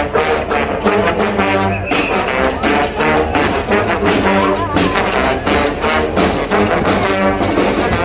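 Large street band playing live: saxophones, trombones, trumpets, sousaphones and clarinets together, over drums keeping a steady beat.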